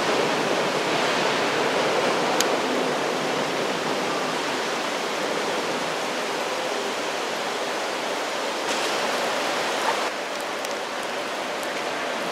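Steady hiss of rain, with one sharp click about two and a half seconds in.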